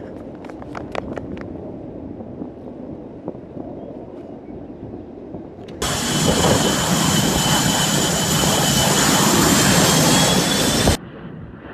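Blue Angels F/A-18 Hornet's twin jet engines running close by as the jets taxi: a loud rushing noise with a steady high whine that starts abruptly about six seconds in and cuts off suddenly near the end. Before it there is a low rumble with a quick run of sharp clicks near the start.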